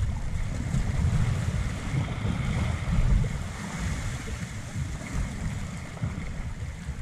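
Wind buffeting the microphone with an uneven low rumble, over the steady hiss of small waves washing across a shallow rocky reef.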